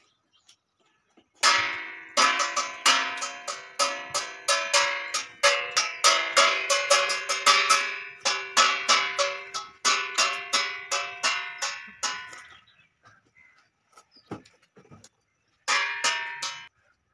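Instrumental music: a quick run of sharply plucked notes starting about a second in and stopping about two-thirds through, with a short phrase again near the end.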